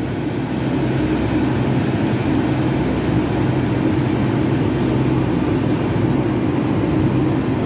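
Ford Focus 2.0-litre engine idling steadily in the engine bay, an even low hum with no change in speed.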